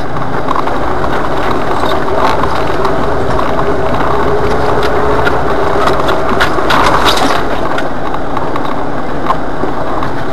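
Jeep Wrangler engine running steadily as the Jeep crawls through tall weeds and brush, heard from inside the cab, with many short scrapes, clicks and rattles through the drive.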